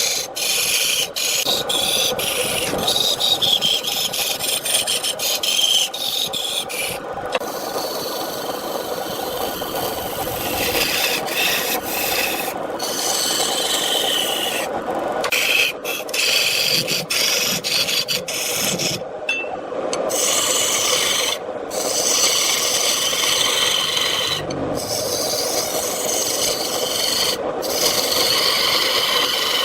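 Turning tool scraping and shaving wood spinning on a lathe: a continuous rasping scrape, broken off abruptly by several brief gaps.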